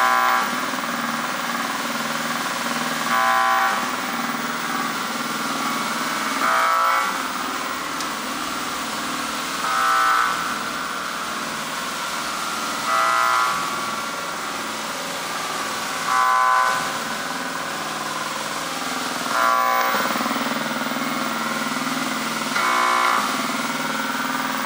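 Square-wave synthesizer sound from an electronic art installation: a steady buzzy drone, with a higher, louder tone that sounds briefly about every three seconds.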